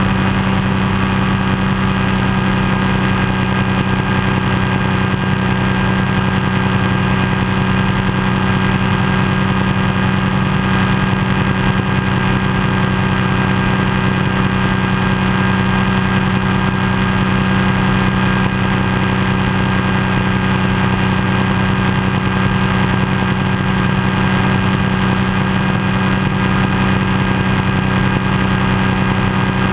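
Ultralight floatplane's pusher engine and propeller running steadily in level flight, a constant, unchanging drone.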